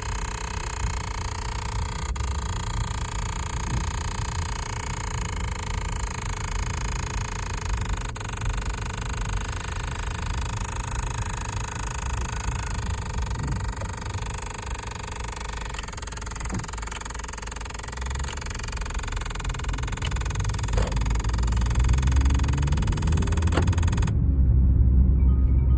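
Abnormal noise from behind the dashboard of a 30-series Toyota Harrier, a steady whir with a few faint clicks, with a deeper rumble building over the last few seconds. The noise comes from a failed air-mix damper servo, the motor that switches the vent outlets.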